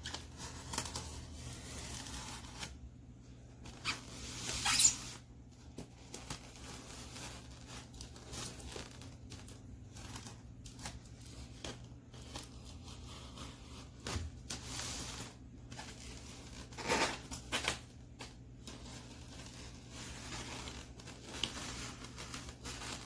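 A knife cutting packing tape along the seam of a styrofoam shipping box: scattered short scratching, tearing strokes, the loudest about five seconds in and again around seventeen seconds.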